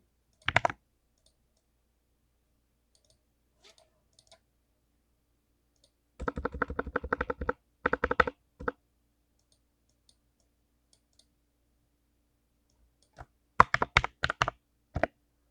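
Lubed clicky blue mechanical keyboard switches being typed on in short bursts: a quick cluster of clicks, then a fast run of rapid keystrokes in the middle, and another brief flurry near the end, with pauses between.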